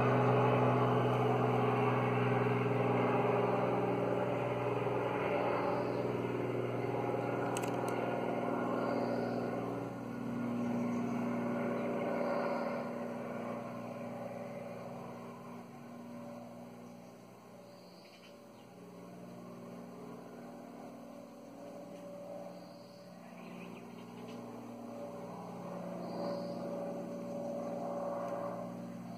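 Helicopter flying past overhead, a steady engine and rotor drone that is loudest at first, fades over about fifteen seconds, then swells a little again near the end.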